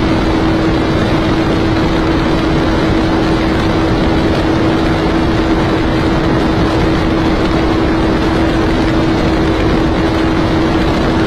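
Suzuki GSR250's parallel-twin engine held at steady high revs in sixth gear at about 145 km/h, its note unchanging, under a steady rush of wind noise.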